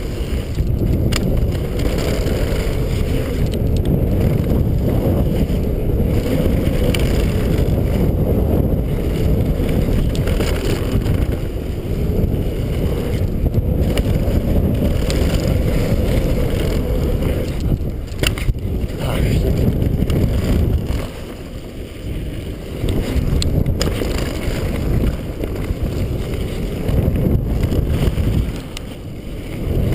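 Wind buffeting the microphone of a camera riding on a downhill mountain bike at speed, over the noise of tyres on a dirt trail, with scattered sharp clatters from the bike over bumps. The noise eases off briefly a little past twenty seconds in and again near the end.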